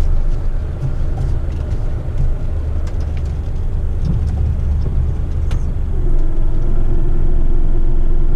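Garbage truck's diesel engine running under way, heard from inside the cab as a steady low rumble. About six seconds in, a steadier, higher hum comes in over the rumble.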